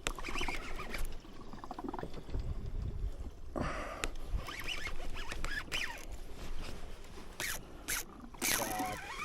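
Fishing reel being cranked while a hooked fish is brought in, with irregular scratchy clicks and squeaks.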